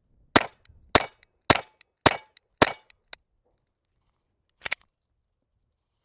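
A Glock 44 .22 LR pistol firing five quick shots, about half a second apart, each with a short ringing echo. A faint click follows just after the third second, and a quieter double crack comes near the end.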